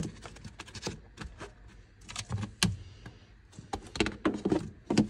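Plastic trim covers and a rubber floor mat being handled and fitted back in place: an uneven run of clicks, knocks and scrapes, with the loudest knocks a little past halfway and near the end.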